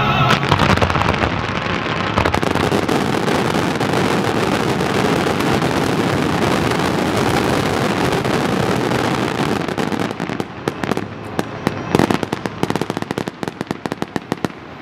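Fireworks finale: a dense, continuous barrage of aerial shell bursts and crackling. After about ten seconds it thins into scattered sharp pops and bangs as it dies away.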